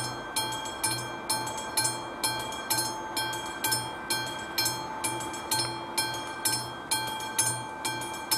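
Level-crossing warning bell of an AŽD 71 crossing signal, a classic mechanical bell, ringing with even strokes about two a second, each stroke leaving a ringing tone. It is the crossing's warning that a train is approaching.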